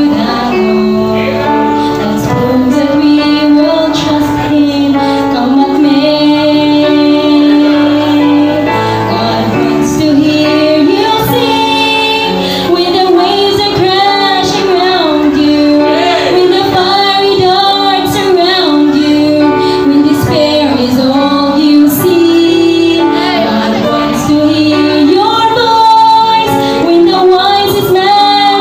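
A woman singing a solo song into a microphone through the church PA, with held, wavering notes over instrumental accompaniment.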